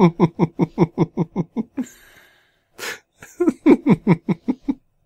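A person laughing in two runs of quick ha-ha-ha pulses, about seven a second, with a sharp breath between them.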